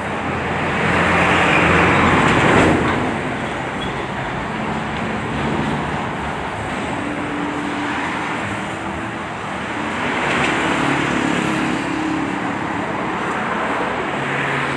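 Road traffic passing on the street, with one vehicle swelling loudest about two seconds in and another around ten seconds, over the steady blowing of a handheld heat gun.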